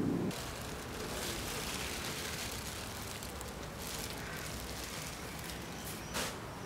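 Thin plastic sheeting crinkling and rustling as it is pulled off a clay sculpture, with one sharper crackle near the end.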